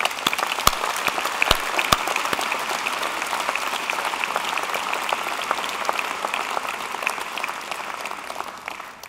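A large audience applauding, dense steady clapping that thins out and fades near the end. A few sharper claps close to the microphone stand out in the first two seconds.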